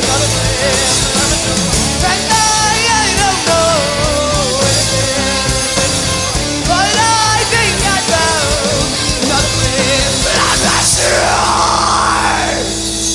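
Rock band playing live with drums and singing. About ten seconds in the full band drops out into two crossing pitch sweeps, one rising and one falling, leaving a single held note ringing on as the song ends.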